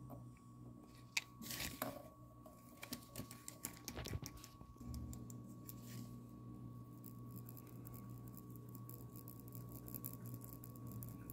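A pen scratching on a paper collector's checklist, marking the circles beside the pictured figures. It starts with scattered taps and paper rustles, then turns to quick, continuous scratchy strokes from about halfway through. A faint steady hum runs underneath.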